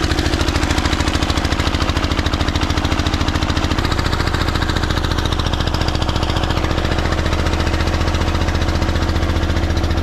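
Engine driving a sugar cane crusher, running steadily with a fast, even beat.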